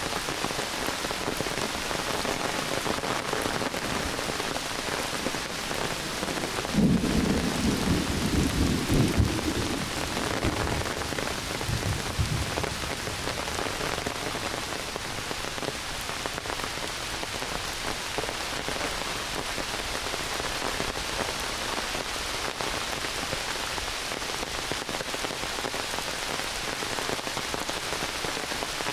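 Heavy rain falling steadily on forest foliage. About a quarter of the way in a low rumble of thunder sets in suddenly and fades over a few seconds, with a weaker rumble shortly after.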